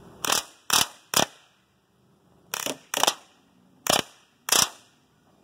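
Crosman Steel Storm CO2 BB pistol firing seven sharp shots in short bursts: three about half a second apart, then a pair, then another pair.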